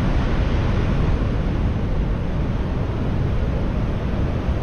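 Heavy surf breaking and washing over the beach in a big, rough sea, a steady rushing noise, with wind buffeting the microphone.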